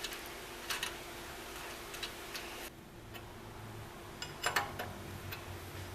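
A few faint metallic clicks and taps as a nut is put on by hand over the wound return spring of a Rockwell drill press, the loudest little cluster about four and a half seconds in.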